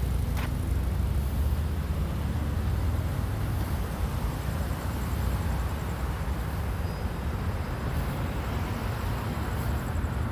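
Steady low rumbling outdoor noise, without distinct events.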